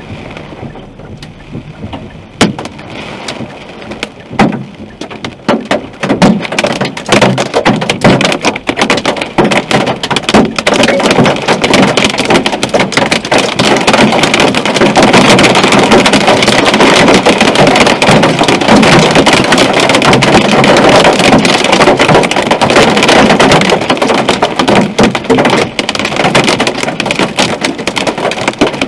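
Hailstones hitting a car's roof and windshield, heard from inside the cabin: a few scattered hits at first, building from about six seconds in into a dense, loud clatter that holds steady.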